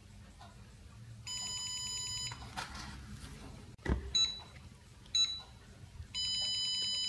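Beeper of a 1980s Bayer Diagnostik Glucometer: a long buzzy beep, then two short beeps a second apart, then another long beep near the end, as the meter times a test-strip reading. A single thump about four seconds in, as the strip holder's lid is snapped shut.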